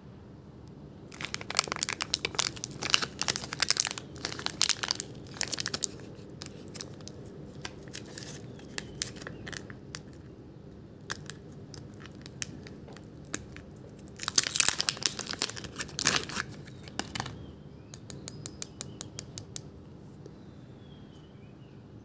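Thin clear plastic wrapping crinkled and pulled off a metal belt buckle by hand, in two bouts of crackling about a second in and again near the middle. A quick run of small ticks follows near the end.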